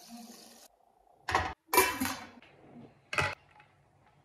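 Broth poured briefly into a stainless steel pot, then three loud clanks of the metal pot and a serving plate being handled.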